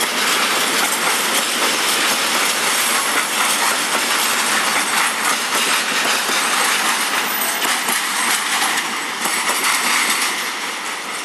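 Freight train's covered box wagons rolling past at close range, their wheels clattering over the rail joints in a dense, loud rumble. The sound eases off near the end as the last wagon goes by.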